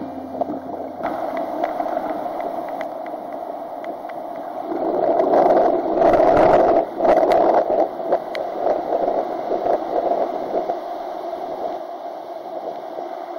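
Ocean surf washing onto a sandy beach: a steady rush of water that swells louder about five seconds in and eases off again after about seven.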